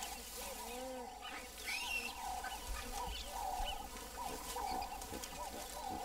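Faint animal calls: many short, soft squeaks and coos that rise and fall in pitch, over a low steady rumble.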